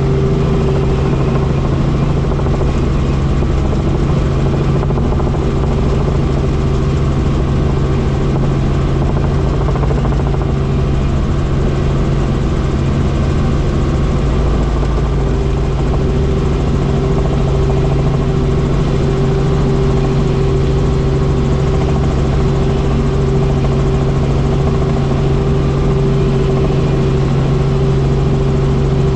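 Helicopter in flight heard from inside the cabin: the engine and rotors give a loud, steady drone with a constant low hum and a higher steady tone above it.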